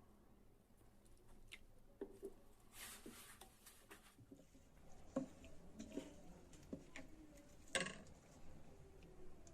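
Faint, scattered light clicks and knocks of kitchen utensils and ingredients being handled, with two sharper knocks about five seconds and eight seconds in.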